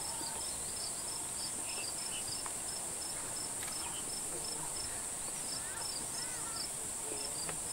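Insect chorus in the bush: a steady high-pitched drone with a chirp repeating about four times a second, and a few faint chirps lower down near the end.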